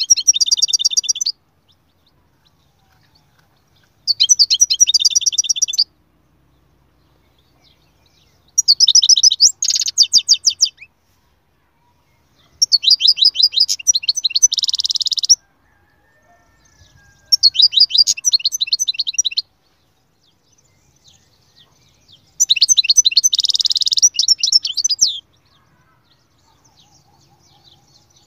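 European goldfinch singing: six phrases of quick, high notes, each lasting about two seconds, separated by pauses of two to three seconds.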